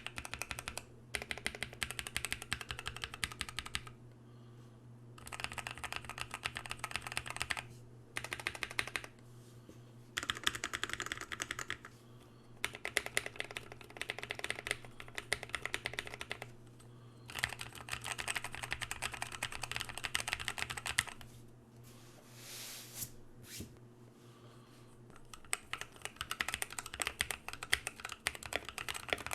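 Typing on a Drop Carina 60% mechanical keyboard in a frosted acrylic case, fitted with lubed NovelKeys Cream linear switches and POM Jelly keycaps. Rapid key clacks come in bursts of a second or more, broken by short pauses, over a faint steady hum.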